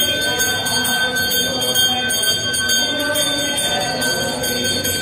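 A bell rung continuously with rapid, even strikes, its ringing tones held steady throughout, over a low murmur of voices.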